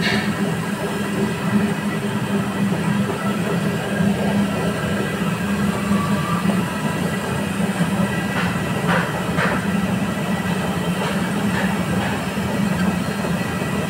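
Gulab jamun dough-ball forming machine running with a steady low mechanical drone as it extrudes dough balls onto its conveyor belt. A few faint clicks come about two-thirds of the way through.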